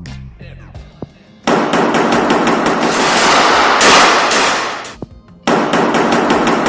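Two long bursts of rapid automatic gunfire, a dense rattle of shots, the first about three and a half seconds long and the second starting about a second after it stops, with music playing underneath.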